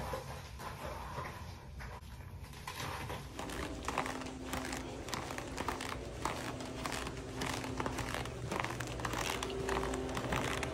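Crinkling and rustling handling noise, a dense run of small crackles that grows busier about three and a half seconds in.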